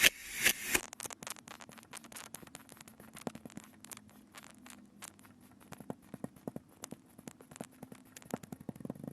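Kinetic sand being cut: a few quick, rhythmic hissing strokes at the start, then many small, irregular crackles and ticks of sand crumbling.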